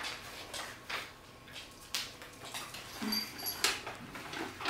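Dogs eating treats: scattered sharp clicks and crunches, with a short whine about three seconds in.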